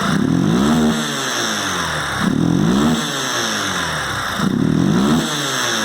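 Yamaha Fazer 250's single-cylinder engine running with the throttle blipped three times, the revs climbing and dropping back each time about every two seconds, during a check of the fuel-injection sensors.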